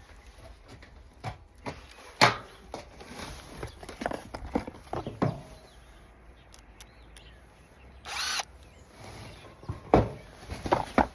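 Scattered knocks and clatter of roofing repair work, with a brief burst of a power drill about eight seconds in.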